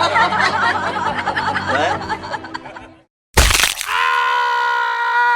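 Two meme sound-effect clips, one after the other. The first is a dense, busy clip with many wavering pitched sounds that stops about three seconds in. After a brief silence a sharp hit starts the second, followed by a held pitched note.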